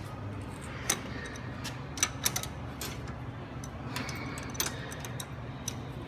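Scattered sharp metallic clicks and taps, a handful spread irregularly, from fasteners on the back panel of a glass furnace being worked loose by hand, over a steady low hum.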